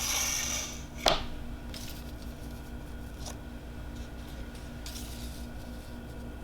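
A rustling scrape that fades out, a single sharp click about a second in, then a faint steady hum with a few light scrapes.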